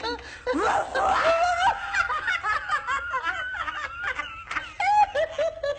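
A woman laughing uncontrollably in high-pitched, choppy giggles and squeals: the helpless laughter of someone high on cannabis cookies.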